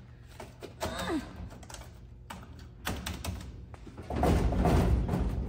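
Buttons pressed on a snack vending machine's keypad: a few short clicks and thunks, then, about four seconds in, a loud noisy clatter lasting over a second.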